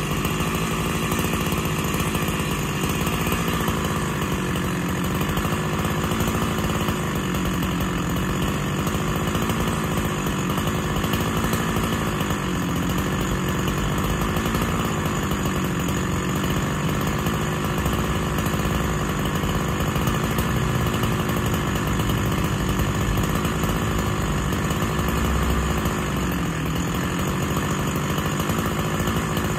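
Freshly rebuilt Husqvarna 365 SP two-stroke chainsaw running steadily while cutting dry oak, its pitch wavering slightly but never dropping off.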